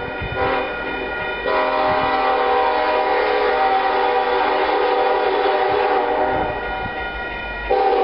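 Locomotive air horn sounding a multi-note chord on an approaching train, held without a break and swelling louder about a second and a half in and again near the end.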